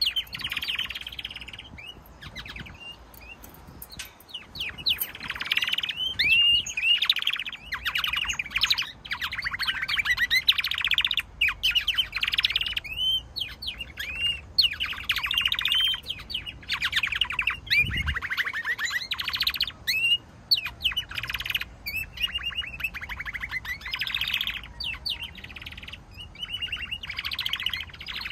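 Domestic canaries singing: long phrases of fast trills and rolls with curving whistled notes, separated by short pauses.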